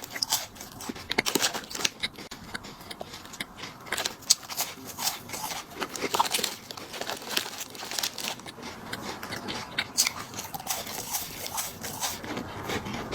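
Plastic snack packaging crinkling and tearing, with many sharp, irregular crackles as a wrapper is handled and opened.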